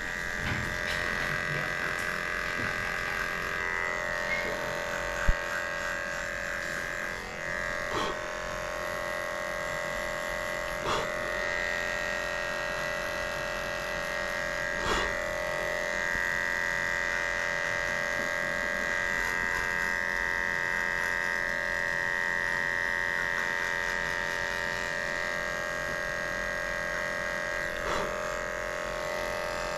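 Cordless electric dog clippers running with a steady hum while shaving the hair from between a dog's paw pads. A few brief clicks stand out through it.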